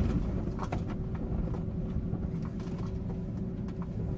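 Car running, heard from inside the cabin: a steady low rumble with a faint steady hum and a few faint clicks.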